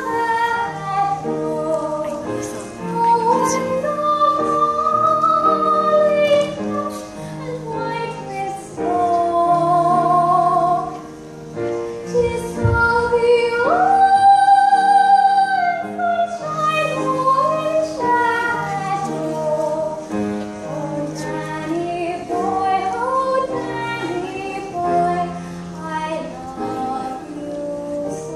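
A young girl singing solo over instrumental accompaniment of held chords. About halfway through she holds one long high note with vibrato.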